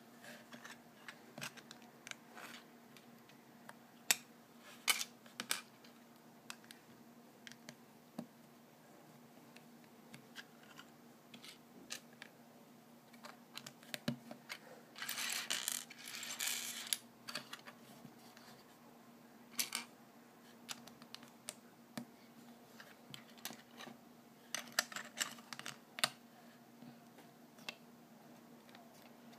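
Small plastic LEGO bricks clicking and clattering on a wooden tabletop as pieces are handled and pressed together: scattered single clicks, with a denser clatter lasting a couple of seconds around the middle. A faint steady hum underneath.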